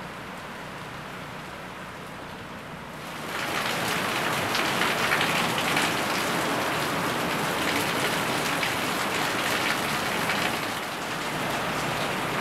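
Heavy hurricane rain pouring steadily, quieter at first and then suddenly much louder and hissier from about three seconds in.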